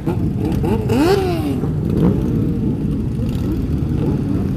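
Several motorcycle engines running together, with overlapping revs rising and falling as bikes pull away.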